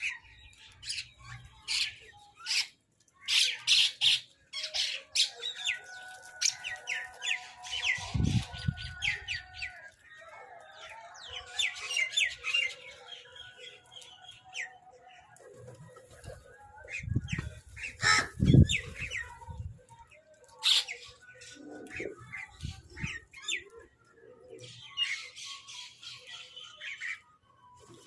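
Crows and mynahs calling: many short, harsh calls one after another, overlapping at times. There are low rumbles about eight seconds in and again around seventeen to nineteen seconds.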